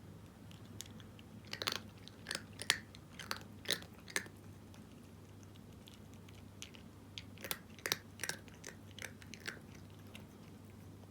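Cat chewing dry kibble: two runs of quick, crisp crunches, one starting about a second and a half in and another about seven seconds in.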